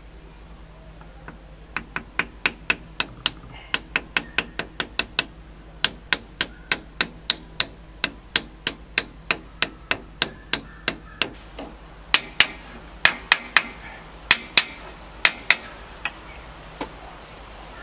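Small hammer tapping a new crankshaft oil seal into the flywheel end of an air-cooled VW engine case. The taps come in quick runs of several a second with short pauses, then give way to fewer, harder blows near the end as the seal is driven home.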